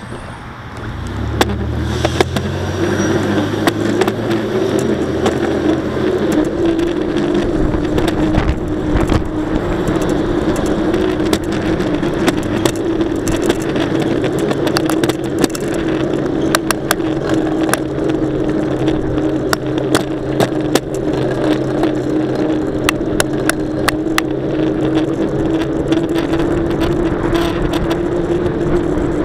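A mountain bike ridden steadily on a road, with a steady tyre hum and frequent sharp clicks and rattles from the bike and its camera mount. The noise swells about a second in.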